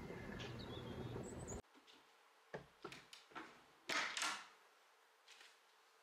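The tail of soft background music, cut off about one and a half seconds in. Then quiet, with a few faint clicks and one brief rustle a little after the middle.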